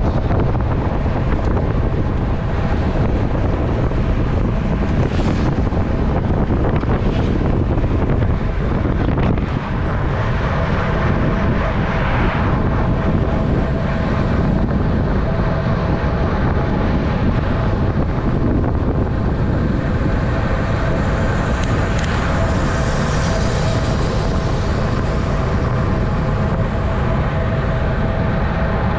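Steady wind rush buffeting the microphone and tyre noise from a road racing bike riding fast.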